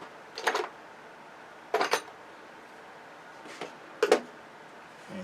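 Three short, sharp clattering knocks of hard objects being handled and set down, spaced a second or two apart.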